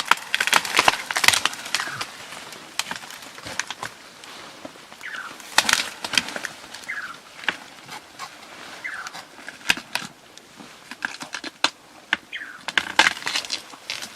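Vegetation being crushed and snapped: a string of sharp cracks and crackles of breaking stems and leaves, densest at the start and again near the end, with a few short falling chirps in between.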